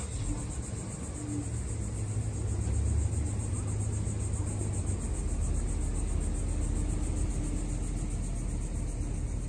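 Outdoor ambience: a low rumble that grows about a second in and then holds steady, over a faint steady high hiss.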